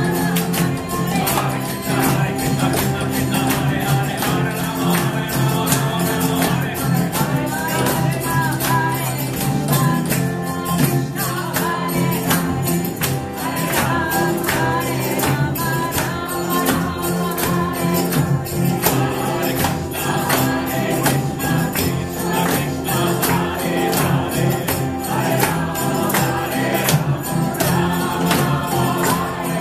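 Group mantra chanting in kirtan style: voices singing a repeating melody over sustained low drone notes, with a steady, fast percussion beat.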